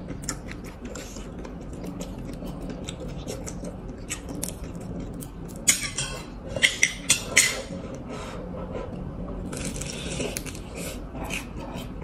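Close-up eating sounds of crisp fried spring rolls (lumpiang togue) being bitten and chewed: a stream of small crackles and crunches, with a quick run of louder sharp clicks about six to seven and a half seconds in.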